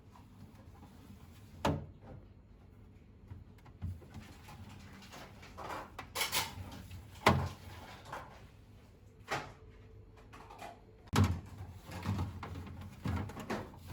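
Scattered knocks and clunks of household items being handled and set down, about seven strokes several seconds apart, with a short rustle about six seconds in.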